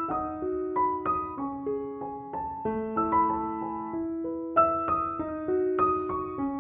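Background piano music: a melody of struck notes, two or three a second, each ringing and fading over lower held notes.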